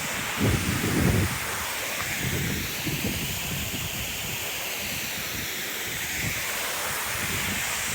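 Waterfall rushing in a steady hiss, with wind buffeting the microphone in low gusts, strongest about a second in.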